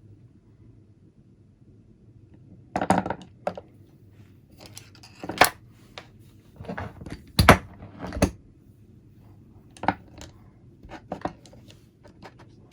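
Irregular sharp clicks and clinks of small metal parts and hand tools being picked up and set down on a workbench. They begin about three seconds in, after a quiet start.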